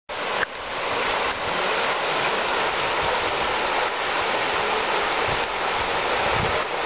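Muddy floodwater rushing over a road and field, a steady hiss of water. There is a brief knock about half a second in.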